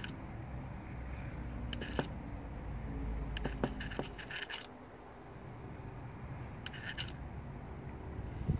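Electric throttle actuator of a BMW M57 diesel throttle body, with its cover off, making small position corrections against a hand forcing the butterfly: a faint motor buzz and gear handling, with a few sharp clicks and a low rumble that fades about four seconds in.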